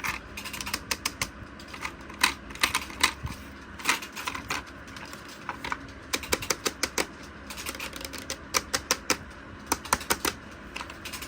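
Toy packaging being handled and opened: an irregular run of sharp clicks and taps over a low steady hum.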